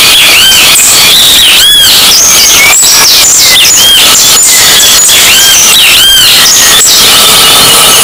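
Great kiskadee (bem-te-vi) singing, short arched high-pitched call notes repeated over and over. The recording is overdriven and clipped, so the song comes out harsh and distorted at constant full loudness.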